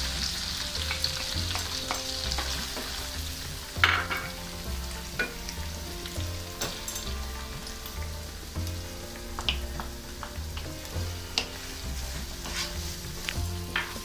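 Freshly added chopped onions sizzling in hot oil and butter with whole spices in a pan, while a spoon stirs them and taps against the pan several times. The sizzle is strongest at the start and eases off as the onions settle.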